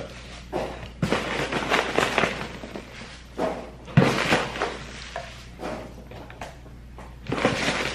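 Packaging being handled and rustled while a shipping box is unpacked, with scattered knocks and one sharp thump about four seconds in.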